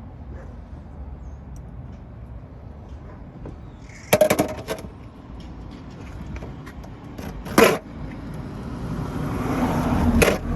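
Metal cable cutters clicking and snapping shut on a corroded battery cable: a quick cluster of sharp metallic clicks about four seconds in and another single snap about three seconds later. Toward the end a wide, low noise swells up and peaks.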